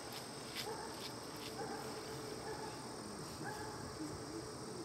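A few short animal calls, about one a second, over a steady high-pitched insect drone.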